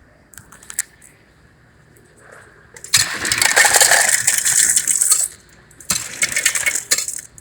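Ice cubes dropping from a soda fountain's ice dispenser into a cup: a loud rattling clatter for about two seconds, then a second shorter rush a moment later, after a few light clicks at the start.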